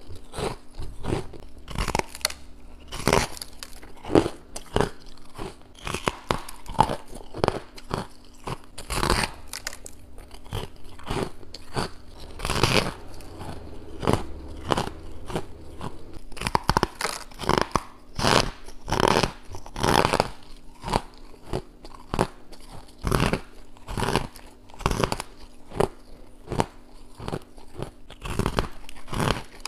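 Biting and chewing hard freezer frost chunks, close to a clip-on microphone: an irregular run of crisp crunches, some louder bites among softer chewing crunches.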